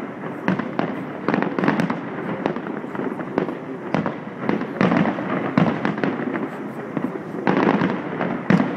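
Aerial fireworks display: shells bursting one after another in many overlapping bangs and crackles, with a cluster of louder bangs near the end.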